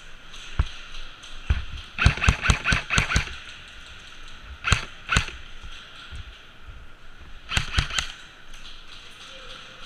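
Airsoft guns firing in short bursts and single shots: a rapid run of about eight shots a couple of seconds in, two more about five seconds in, and another quick burst near the end.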